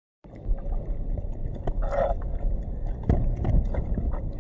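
Long-handled spade digging into wet mud, with dull thuds and squelches as it cuts and lifts the sticky mud, over a steady low rumble.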